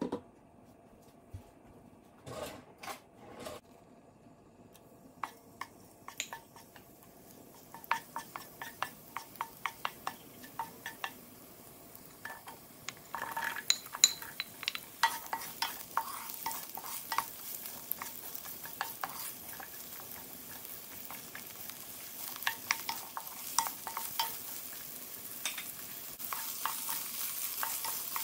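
A few knocks, then olive oil heating in a nonstick pan begins to sizzle and pop. About halfway through, diced red onions drop into the hot oil with a burst of sizzling. Near the end a wooden spoon stirs them, scraping along the pan over steady frying.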